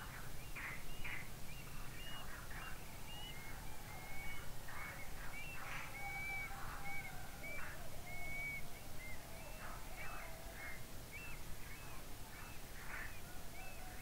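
Dawn chorus of several birds: many short chirps and brief whistled notes overlapping throughout, over a steady low background hum.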